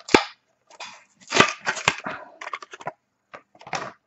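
A Matchbox toy car's plastic blister pack and card backing being torn open by hand, crackling and crinkling in a run of sharp, irregular bursts.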